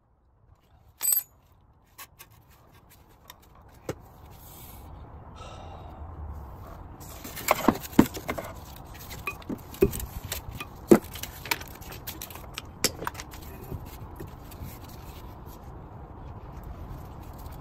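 Scattered metal clinks, taps and scraping from hands working at a car's front wheel hub and brake disc, with a sharp clink about a second in and a busier run of clicks in the middle.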